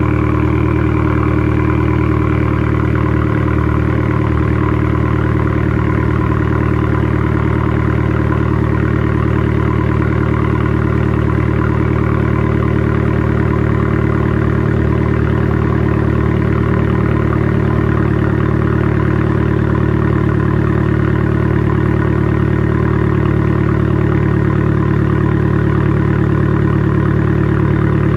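2014 Fiat 500L's 1.4-litre turbocharged four-cylinder idling steadily at the tailpipe through a straight-piped exhaust, with both the rear muffler and the centre resonator removed.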